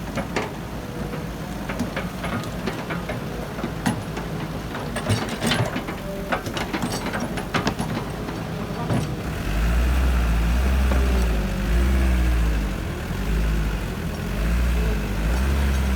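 Heavy diesel engine of construction machinery running, with a scatter of sharp clanks and knocks over the first half. About nine seconds in, the engine is pushed harder into a loud, uneven, pulsing rumble.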